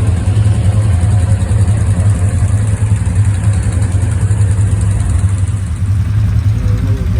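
ATV engine running steadily with a strong, even low hum.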